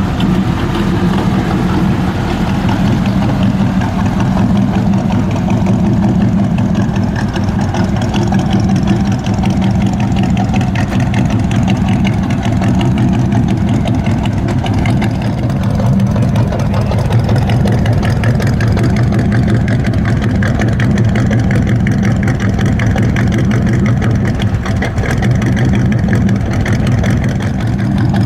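American muscle car's V8 engine idling steadily and loudly, with a throbbing exhaust.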